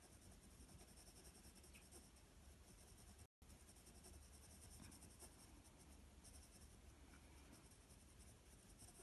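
4B graphite pencil shading on sketchbook paper: faint, quick back-and-forth scratching strokes in two spells, as dark shadow is laid into the drawing. The sound cuts out for a moment a little after three seconds.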